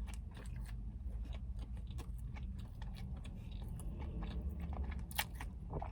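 A person chewing a mouthful of burger, with many small wet clicks and smacks, over a steady low hum.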